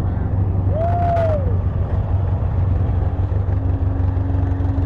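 ATV engine running with a steady low drone. About a second in, a short tone rises and falls, with a few clicks, and a steady hum starts near the end.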